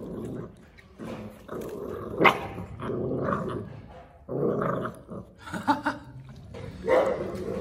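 Two Presa Canario puppies growling at each other in short bouts as they squabble over a shared food bowl, the loudest burst about two seconds in.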